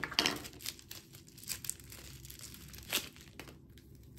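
Clear plastic wrapping crinkling and rustling as it is handled and pulled open, with scattered sharper crackles, the loudest about three seconds in.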